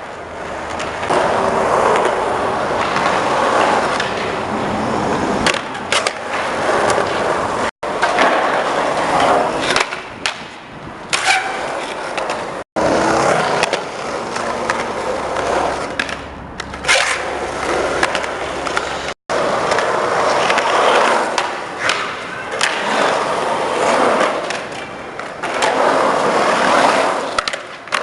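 Skateboard wheels rolling over skatepark concrete, with repeated clacks and knocks of the board hitting the ground and a couple of brief high scrapes. The sound drops out abruptly three times.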